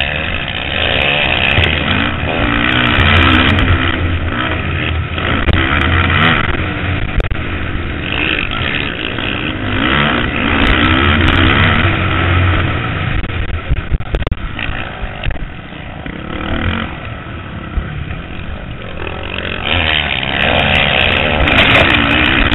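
Motocross bike engine revving up and down as the rider accelerates, shifts and backs off through the turns, heard from a helmet-mounted camera.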